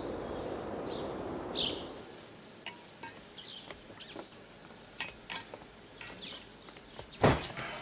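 A few short bird chirps, then scattered light clinks and knocks of dishes and utensils, with one louder clatter about seven seconds in.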